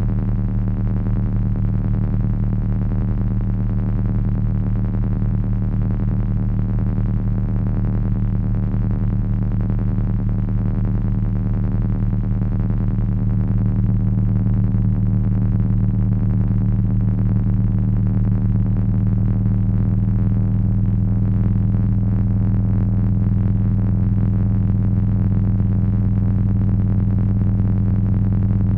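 Heavy electronic drone noise from three Frequency Analyzer v1 units controlled by an HP 200C audio oscillator: a dense, steady low drone with a rough, fast-flickering grain above it, growing slightly louder about halfway through.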